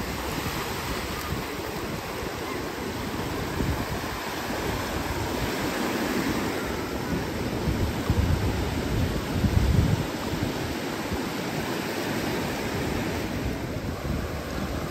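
Ocean surf washing onto the beach, with wind rumbling on the microphone; the sound swells about eight and ten seconds in.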